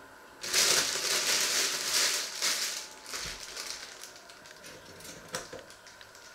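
Clear plastic wrapping crinkling as it is handled, loud for about two and a half seconds, then fading to a few light rustles and a sharp click.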